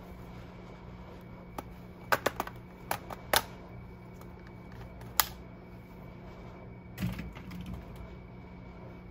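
A laptop being handled on a bench: a run of sharp plastic clicks and taps, then a softer knock and rustle about seven seconds in as it is lifted, over a steady low electrical hum.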